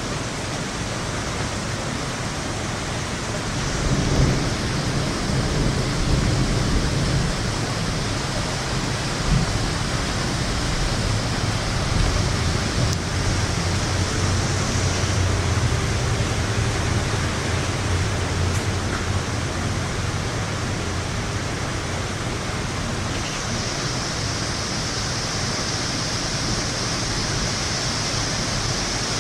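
Thunderstorm: steady rain hiss, with a long low roll of thunder that starts about four seconds in, swells through the middle and fades away.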